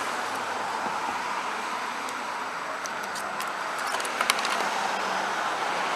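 Steady background noise, like distant road traffic, with a few light clicks and taps a little after three and around four seconds in, from the wires and tools being handled.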